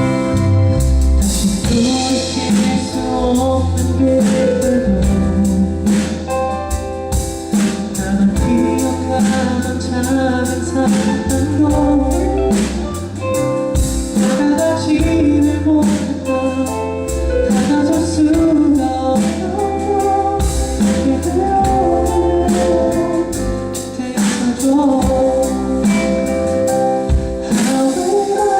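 Live band performance of a pop ballad with a male lead vocal over keyboard, bass and a steady drum beat.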